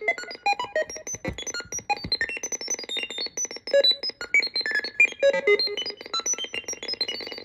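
Random Tone Machine, a DIY retro-computer-style tone generator, playing a rapid stream of short beeps at random pitches, several per second, jumping between low and high, with reverb added.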